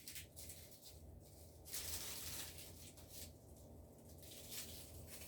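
Dry leaves rustling and crinkling as they are handled, in short crackly bursts, loudest about two seconds in.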